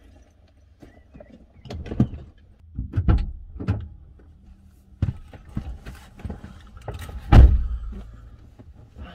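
A person getting into a car: the driver's door opening, knocks and rustling as he climbs into the seat, and a heavy thud late on as the door is shut.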